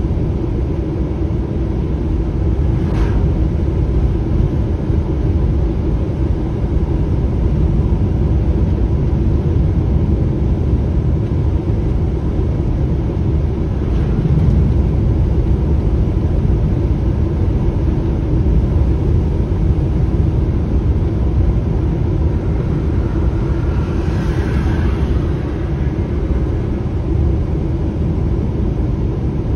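Semi-trailer truck driving on a country road, heard from inside the cab: a steady low engine and road rumble. A brief higher hiss rises over it about 24 seconds in.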